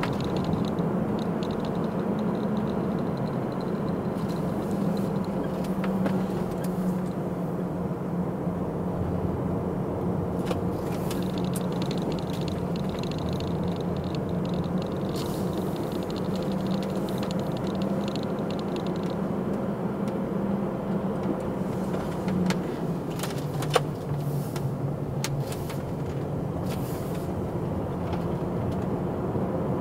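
Car driving, heard from inside the cabin: a steady engine hum with tyre and road noise. A few sharp clicks or knocks come about three-quarters of the way through, one louder than the rest.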